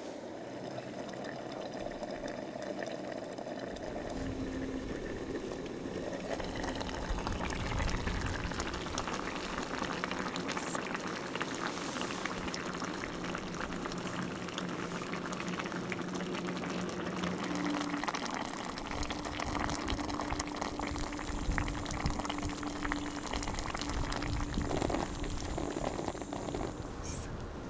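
Liquid boiling in a cooking pot: a dense bubbling that builds up over the first several seconds and then keeps going steadily.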